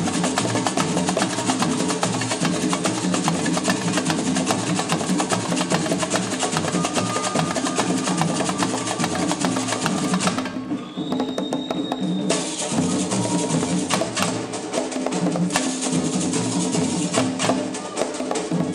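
Live samba percussion: hand drums played in a fast, busy rhythm with a sharp, clacking top. The high clatter drops out for about two seconds a little past the middle, then the full rhythm returns.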